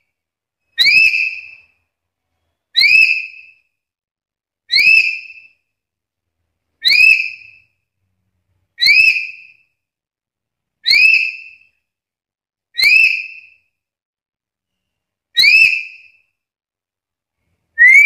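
Black-capped lory giving short, rising whistled calls, nine of them, one about every two seconds.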